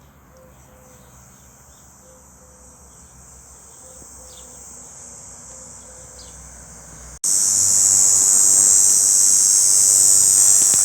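A cicada's calling song, a steady high-pitched buzz made by the tymbal membranes on its abdomen, the call a male uses to attract a mate. It is fairly faint at first, then abruptly becomes much louder about seven seconds in.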